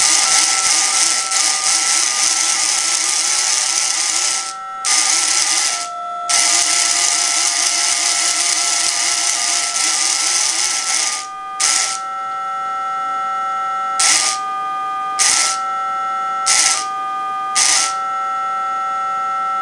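DTMF tone pairs played through a small speaker from the robot's sensor encoder circuit, each tone pair standing for the current state of the robot's sensors. The steady two-note tones switch between pairs, flickering rapidly back and forth in the first half and then changing about every second, as different sensors are triggered. A loud hiss runs over them for the first half, then comes in short bursts.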